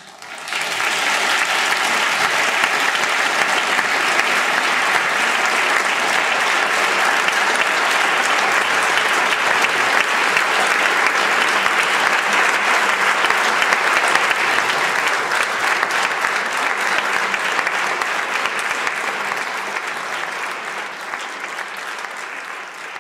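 Audience applauding: a long, steady round of clapping that starts about half a second in and thins out near the end.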